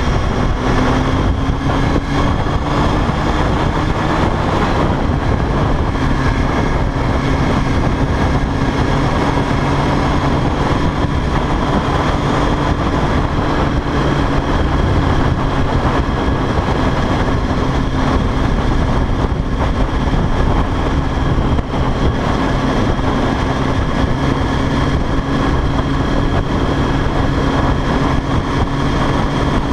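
Sport motorcycle engine running at a steady cruise, with heavy wind and road noise on the bike-mounted camera's microphone. The engine pitch rises a little in the first few seconds, then holds steady.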